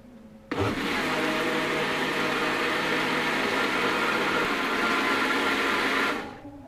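Small personal blender's motor running steadily, grinding a wet garlic-and-ginger spice paste. It starts abruptly about half a second in and winds down near the end.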